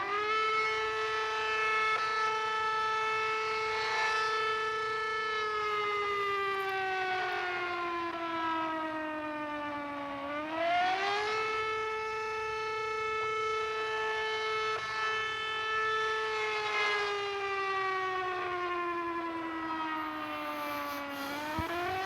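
Century rotating outdoor tornado warning siren sounding a wail: the tone climbs quickly, holds high, then slides slowly down, twice over, and starts climbing again near the end. Its sound swells every few seconds as the rotating horn sweeps past.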